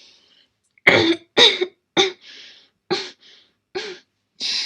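A girl coughing in a fit: a run of about six short, harsh coughs roughly half a second to a second apart, with raspy breaths drawn between them.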